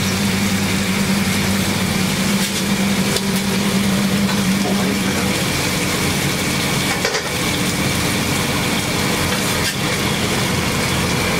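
Bacon and apple pieces sizzling steadily on a flat-top griddle under a running kitchen exhaust hood fan's hum, with a few light knocks of a metal spatula.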